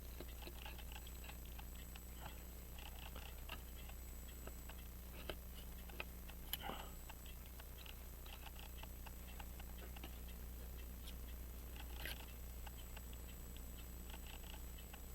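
Light clicks, taps and small scrapes of metal watchmaking tools being handled as a staking tool and punch are reset on a pocket watch balance, a few sharper clicks about five to seven seconds in and again near twelve seconds, over a steady low hum.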